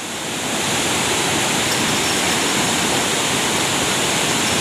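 Loud, steady rush of fast-flowing river water.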